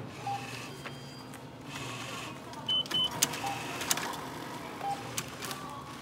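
Self-checkout payment machine at work: the motor of its banknote acceptor whirring as it takes in a bill, with two short high electronic beeps about three seconds in, over a steady low hum.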